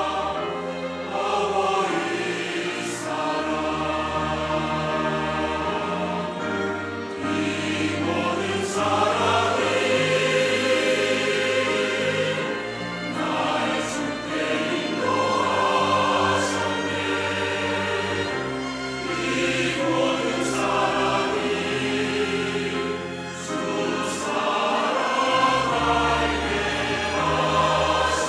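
Mixed church choir of men and women singing a Korean hymn together in several parts.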